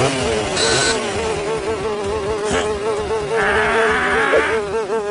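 Cartoon sound effect of a fly buzzing: a steady drone that wavers in pitch throughout. A short hissing noise sits over it about three and a half seconds in.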